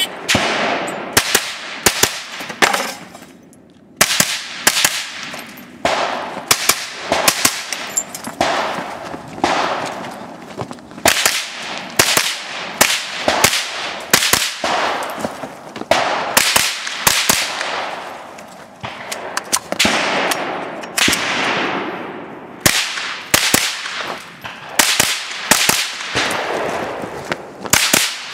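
GSG-5 .22 LR rifle firing rapid shots in quick strings of two or three, each a sharp crack with a short echo. There is a brief lull about three seconds in.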